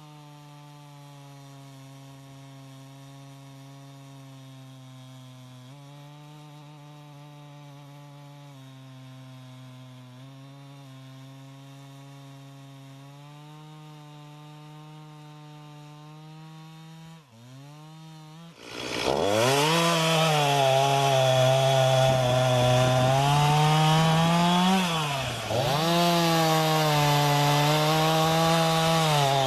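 Stihl MS 251 C chainsaw's 45.4 cc two-stroke engine running steadily and fairly quietly. About eighteen seconds in it turns much louder and harsher as it cuts wood, its pitch wavering and dipping briefly under load a few seconds later.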